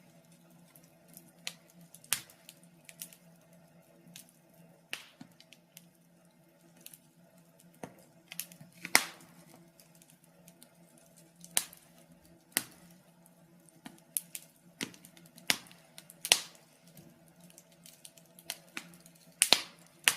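Wood fire crackling: irregular sharp pops and snaps, a few loud ones standing out among softer ticks, over a faint steady low hum.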